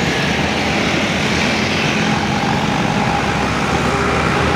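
A large bus's engine and tyres running steadily and loudly, with a faint steady whine above the engine noise.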